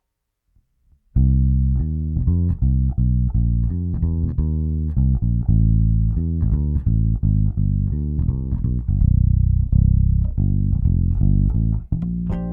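Electric bass guitar playing a run of plucked notes, several a second, starting about a second in.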